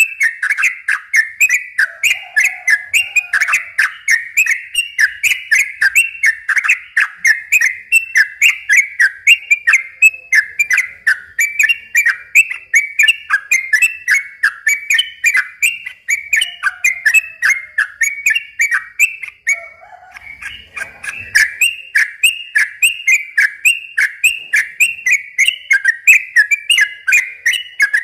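Yellow-vented bulbul (cucak trucuk) singing a long, fast run of short whistled phrases, about three notes a second, with a brief break about two-thirds of the way in.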